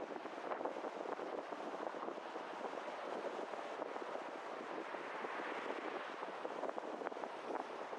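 Steady rushing wind and road noise from a car driving, with no engine note standing out.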